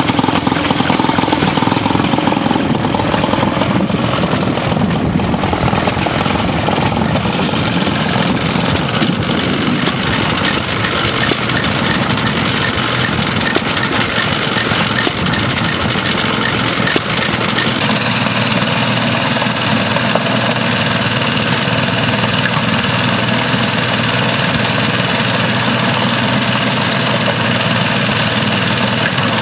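Small vintage stationary engines running in turn. First a small pumping engine, then from about three seconds in a 1932 Amanco engine, then from about eighteen seconds in a JAP engine with a steady low hum.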